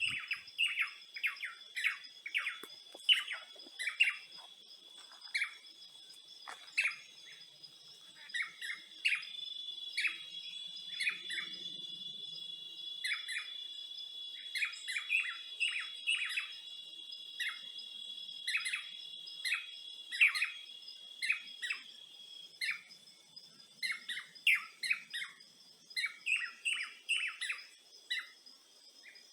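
Songbirds chirping in quick, short, downward-sliding notes, many in a row with short gaps. A steady, high-pitched insect trill runs underneath and grows a little stronger for a stretch in the middle.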